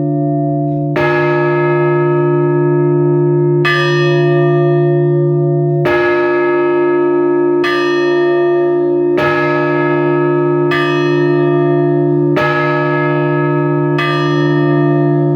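Orthodox church bells rung by hand for a funeral service: single struck strokes about every one and a half to two and a half seconds, eight in all, each ringing on over the steady hum of a large bell.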